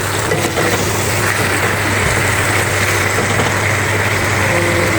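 A steady mechanical drone with a constant low hum under an even hiss.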